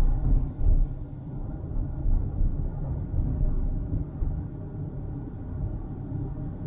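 Low, steady rumble of a car being driven, engine and tyre noise heard from inside the car, swelling louder a few times in the first second.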